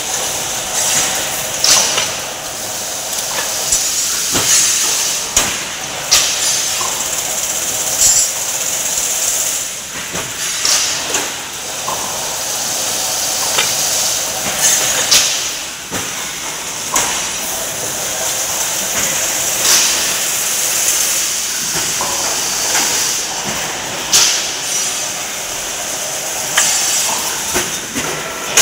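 Chain-link fencing machine running, with a steady high hiss and a sharp metallic clank about every two seconds as its edge-locking jaws work the mesh.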